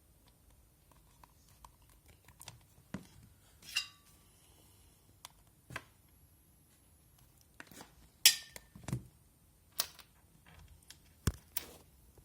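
Scattered small clicks and taps from handling magnetic USB-C charging cable plugs, the sharpest clicks a little past halfway and near the end.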